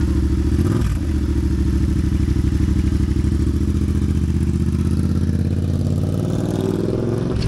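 Yamaha MT-07's 689 cc parallel-twin engine running as the bike moves off. Its note dips briefly about a second in, holds steady, then rises over the last two seconds as it accelerates.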